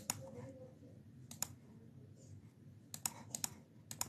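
Quiet computer mouse clicks, about eight spread irregularly, several in quick pairs, as settings are clicked through on screen.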